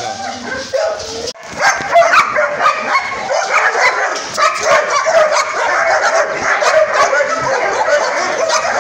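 Several kennelled dogs, German shepherds among them, barking and yelping together in a dense, overlapping racket. They are set off by one dog being let out of its pen. The din grows thick about a second and a half in.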